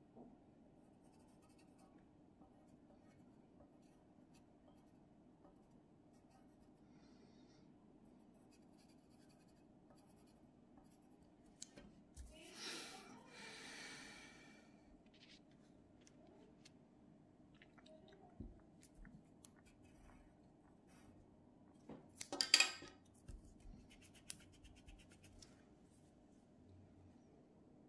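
Faint pencil scratching on paper over a low steady room hum, with two louder rustling handling noises, one about twelve seconds in and a sharper, louder one a little over twenty seconds in.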